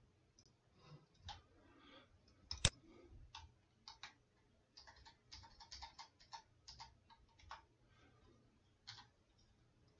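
Computer keyboard keys tapped in short, irregular runs, with one louder click about two and a half seconds in.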